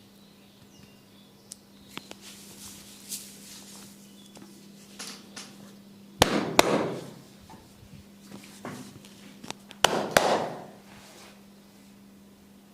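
Percussive head-massage strikes: two loud, sharp knocks about four seconds apart, each followed by a short rustle, with lighter taps and clicks between, over a steady low hum.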